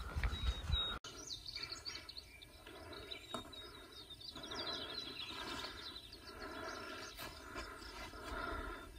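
Small birds chirping and trilling over a faint, steady outdoor background. A low rumble during the first second stops abruptly.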